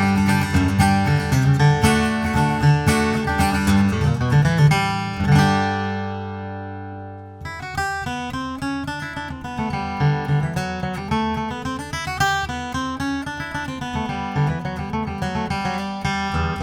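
Taylor 918e First Edition acoustic guitar with Indian rosewood back and sides, played solo. It is strummed briskly, ending on a chord that rings out for about two seconds. A new, lighter passage of picked notes then starts abruptly about seven seconds in.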